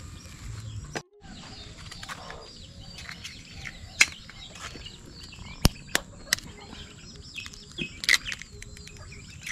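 Small birds chirping throughout, with a few sharp taps and clicks as a boiled egg's shell is cracked with a spoon and peeled by hand.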